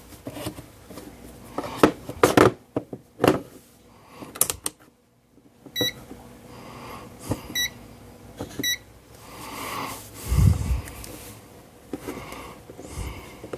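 Clicks and knocks of test gear being handled and set up, with three short electronic beeps from a digital multimeter's beeper, about six, seven and a half, and nine seconds in.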